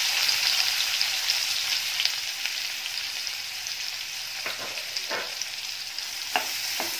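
Freshly chopped onion sizzling in hot oil in a non-stick kadhai, the sizzle easing slowly as it settles. In the second half a spoon stirs it, scraping the pan four times.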